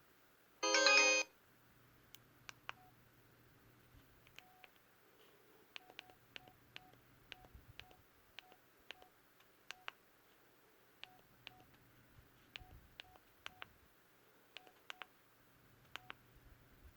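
Samsung Gusto 3 phone: a brief loud electronic tone about half a second in, then a long series of faint key clicks, each with a small beep, as the phone's buttons are pressed between ringtones.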